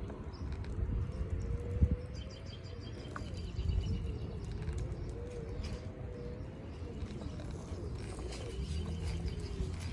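Hoverboard rolling over concrete: a low rumble from the wheels with a wavering hub-motor whine that rises and falls as it speeds up, slows and turns. A sharp knock comes a little under two seconds in.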